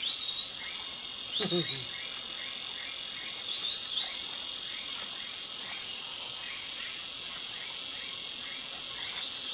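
Forest insects droning steadily at a high pitch, with short rising chirped calls at the start, about one and a half seconds in, and about four seconds in.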